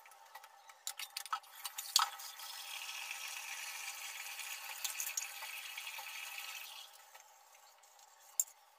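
Washing steel dishes by hand at a kitchen sink: clinks of metal plates and pots, with tap water running steadily for a few seconds in the middle.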